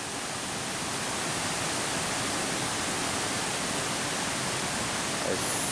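Water running steadily over a small waterfall and down a stream: an even, unbroken rush.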